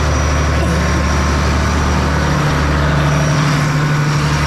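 Massey Ferguson 8470 tractor's six-cylinder diesel engine running steadily under load while driving a silage bagger, heard close up. Its low drone wavers for a moment a little past halfway.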